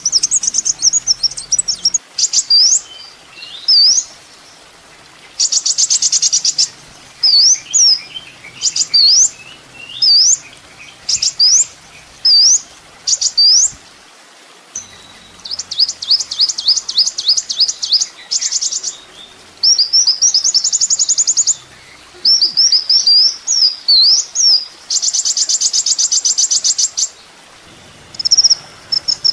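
Kolibri ninja sunbird song: bursts of sharp, high rising and falling whistled notes mixed with fast buzzy trills one to two seconds long, with short pauses between phrases.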